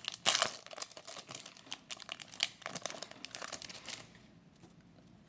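Foil trading-card booster pack wrapper crinkling as it is handled and torn open, a dense run of crackles that stops about four seconds in.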